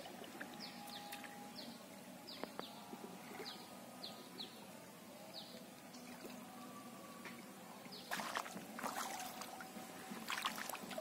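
A bird calling over and over with short, high notes that fall in pitch. From about eight seconds in, water splashes and sloshes as a person wades through it.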